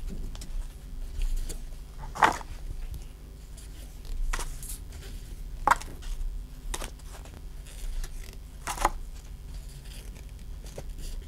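Pokémon trading cards being slid one at a time from the back of a small hand-held stack to the front, each a short papery swish of card stock, about six in all.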